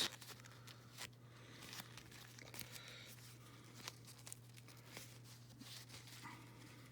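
Faint clicks and rustling from fiddling with a small working zipper on doll clothing that sticks and won't open easily. A steady low hum runs underneath.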